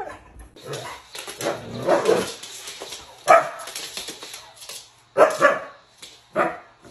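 Siberian husky barking and vocalizing in a string of short calls, one after another.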